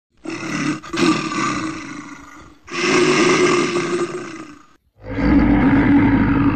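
A large wild animal roaring three times, each roar about two seconds long with a steady low pitch; the last one cuts off abruptly.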